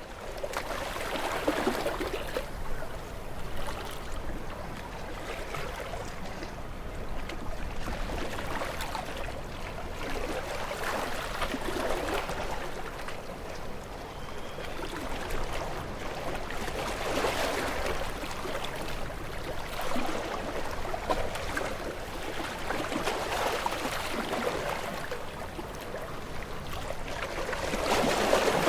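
Ocean waves breaking against rocks: a continuous splashing wash that swells and falls back every few seconds, with the biggest surge near the end.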